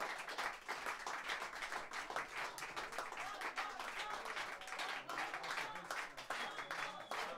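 Audience applauding: steady clapping of many hands, with some voices in the crowd.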